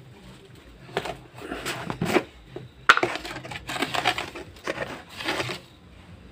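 Blue-capped plastic salt container being handled and opened: a run of rustling scrapes and knocks, with a sharp click about three seconds in.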